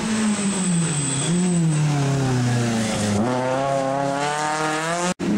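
Rally car engine revving as the car comes into a junction, its pitch rising and falling through the gear changes, then climbing steadily as it accelerates hard away from about three seconds in.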